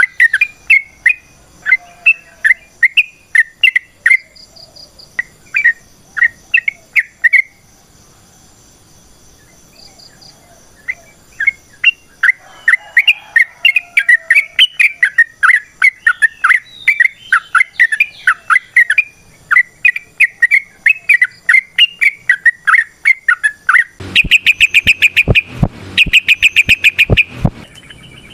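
Yellow-vented bulbul (trucukan) singing its long, rapid, bubbly warbling song of quick chirping notes. The song pauses for a few seconds about a third of the way in, then runs on at length. Near the end it changes to a faster, harsher rattling chatter.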